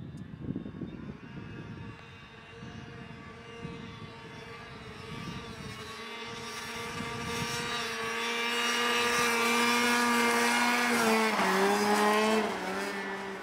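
Snowmobile engine running at high, steady revs, growing louder as the sled approaches. Its pitch dips a little about eleven seconds in, and it quietens near the end. Gusty wind rumbles on the microphone in the first half.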